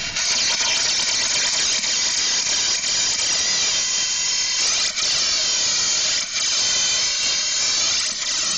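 Compressed air blowing dust out of a hole drilled for an epoxy anchor bolt: a loud, steady hiss with a faint whistle, dipping briefly twice.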